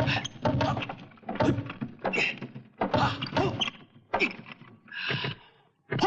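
A quick run of short, sharp hits and swishes, one every half second to a second: kung-fu film fight sound effects.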